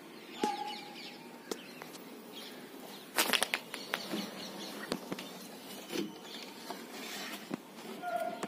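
Handling noise: scattered clicks, knocks and rustling, with a louder clatter about three seconds in and two brief faint whistle-like tones, one near the start and one near the end.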